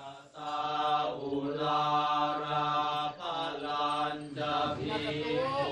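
A group of Buddhist monks chanting in unison at a funeral rite: sustained, steady chanted syllables over a low drone, with brief pauses for breath.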